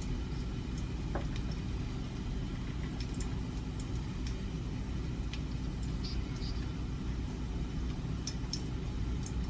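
Range hood fan running with a steady low rumble and hum. A spoon clicks faintly against a plastic bowl a few times.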